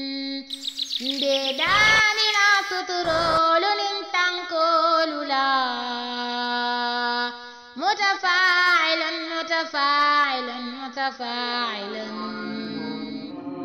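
A single male voice reciting the Quran in the melodic style, drawing vowels out into long gliding and held notes. There are two long phrases, with a short break about halfway.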